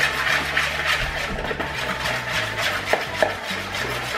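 Metal spoon stirring white glue and shaving cream in a clear mixing bowl, with repeated scrapes and clicks as the spoon rubs and knocks against the bowl.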